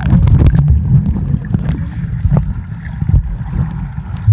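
Muffled low rumble and sloshing of water around a GoPro's microphone while the camera is under the water, with scattered faint knocks.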